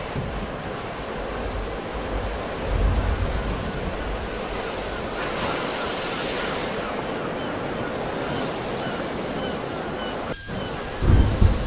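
Sea waves surging and washing in a continuous rush, one swell building about five seconds in. Wind buffets the microphone in low rumbling gusts about three seconds in and near the end.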